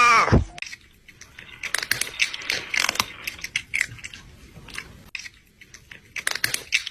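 Loud, crunchy chewing of hard food, with many irregular crackling bites. It opens on the tail of a pitched sound effect gliding steeply down.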